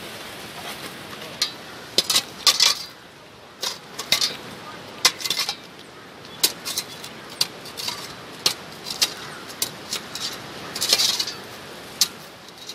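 Metal shovel scraping and chipping at slush and ice, giving irregular sharp clinks and short scrapes.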